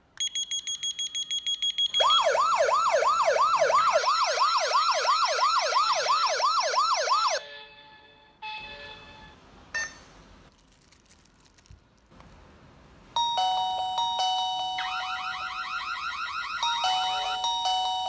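Wireless WiFi SOS alarm host going into alarm: about two seconds of rapid beeps, then a loud siren rising and falling about three times a second that cuts off after about five seconds. After a few quieter seconds with a couple of clicks, a second alarm starts with steady electronic tones and a faster chirping warble.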